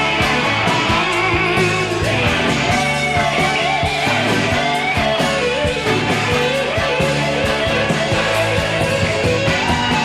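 Hard rock band demo recording from 1984: electric guitars over bass and a steady drum beat, with a lead line bending and wavering in pitch.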